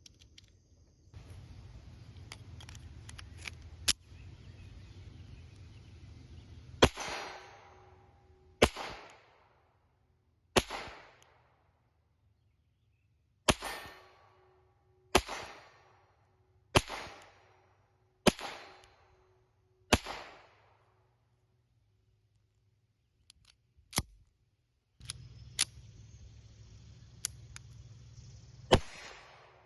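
Mauser 1910 .25 ACP pocket pistol firing single shots at a steady pace, each a sharp crack with a short echo. Eight shots come about one and a half to two seconds apart, and a couple more follow after a pause, with lighter clicks of handling in between.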